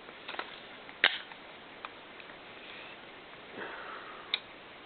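Clicks and a brief scrape of carbine parts being handled and fitted together while the upper and lower receivers of a Colt M4 .22LR are joined. The sharpest click comes about a second in, another near the end, with a short scraping sound just before it.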